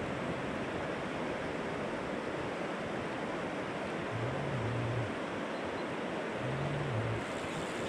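Steady rushing of a shallow river flowing over a stony bed close by, with two short low hums about four and six and a half seconds in.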